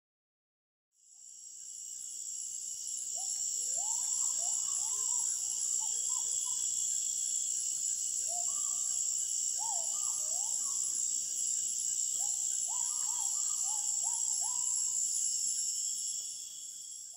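Jungle ambience: a steady high-pitched insect chorus, with a bird calling in three runs of short rising notes. It fades in just after the start and fades out near the end.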